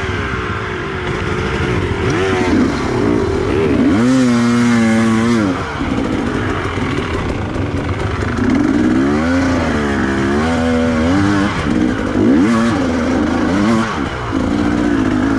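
Motorcycle engine revving up and down repeatedly, its pitch climbing and falling every few seconds as the throttle is opened and closed.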